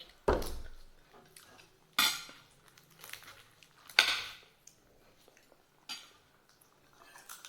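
Cutlery and dishes clinking during a meal: four sharp clinks about two seconds apart, with a few fainter taps between.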